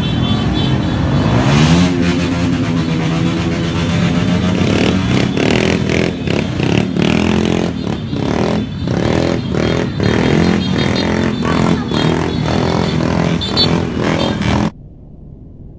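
Several motorcycles in a convoy revving their engines again and again, the pitch rising and falling, with clatter over them. The sound cuts off suddenly near the end, leaving quiet room tone.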